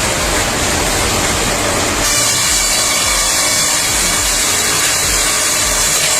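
Engine-driven saw running as it works timber, with a low engine rumble underneath. The sound changes abruptly about two seconds in, when a steady high whine comes in.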